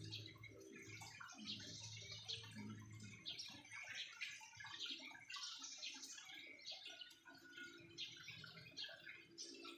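Small birds in an aviary chirping and twittering: many short, high calls overlapping throughout. A low steady hum sits underneath for the first three seconds.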